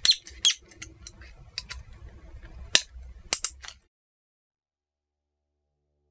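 Small screwdriver working on a plastic Schuko socket coupling: a handful of sharp clicks and taps of metal on plastic, then the sound cuts off abruptly just under four seconds in.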